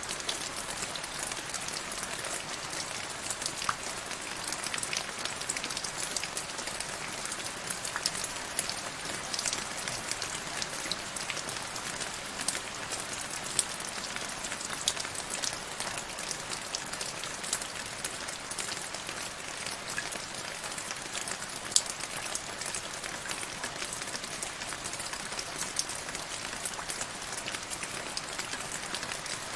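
Steady rain falling into a shallow puddle on grass: an even hiss of many small drop ticks on the water, with an occasional louder single drop.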